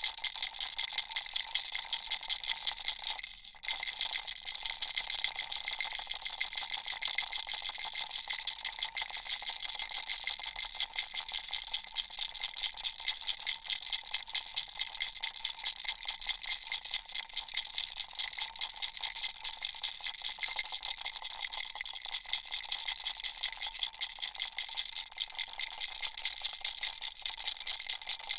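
Baby rattle shaken continuously in quick, even strokes, a bright rattling with a faint ringing tone; it stops briefly about three and a half seconds in, then resumes.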